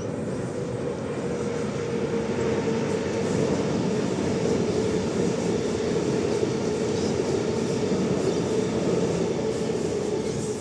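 Sydney suburban electric passenger train passing on the tracks: a steady, loud rail rumble with a steady tone running through it.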